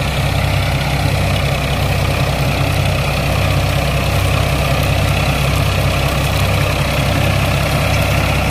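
Farmtrac tractor's three-cylinder diesel engine running steadily under load as it pulls and drives a straw reaper, with the reaper's machinery running along with it.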